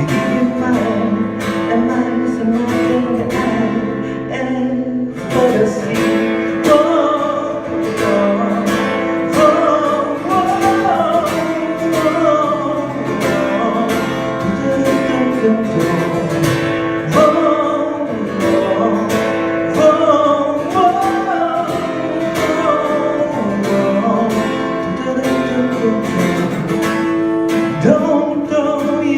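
Acoustic guitar strummed in a steady rhythm, with a wordless sung melody gliding over it during an instrumental break of the song.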